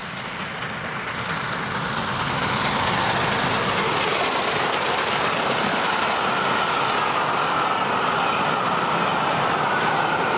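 Steam locomotive hauling a train of coaches passes close by, getting louder over the first few seconds as it approaches, then the steady noise of the coaches rolling past on the rails. A steady high tone runs underneath in the second half.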